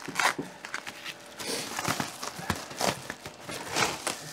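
Plastic bag wrapping crinkling and cardboard packing rustling and knocking as it is pulled out of a new griddle's box, in irregular crackles and small knocks.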